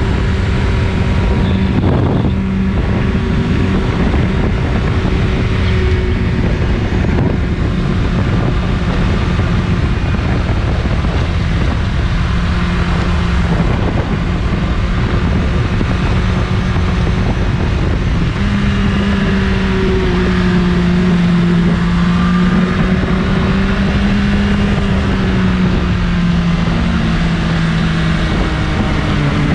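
BMW S1000RR inline-four engine with its stock exhaust, running at a steady, held engine speed. The pitch rises a little about two-thirds of the way through and drops off near the end.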